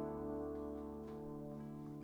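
Solo acoustic guitar: a chord left ringing and slowly fading.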